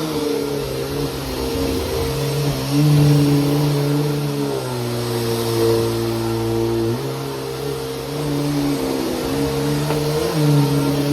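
Bissell PowerForce Helix bagless upright vacuum running, its motor hum stepping up and down in pitch every couple of seconds as the load on it changes. The owner says the motor is already failing and arcing badly.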